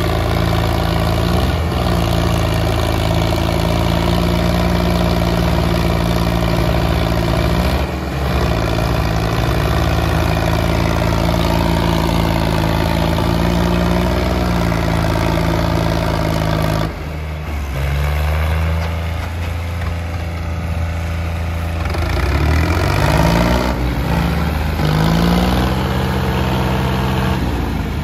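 Diesel tractor engines of a Sonalika and a New Holland 3630 running hard under load as the two chained tractors pull against each other. The engine note holds steady, then from about two-thirds of the way through it rises and falls in pitch as the throttle changes.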